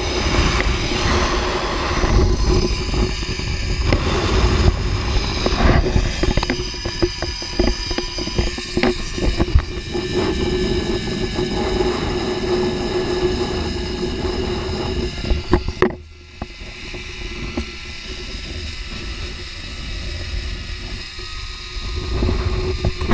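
Wind rushing over a camera microphone on a rider speeding down a long zipline, with the trolley's pulleys running along the steel cable in a steady hum. The rushing drops noticeably about sixteen seconds in.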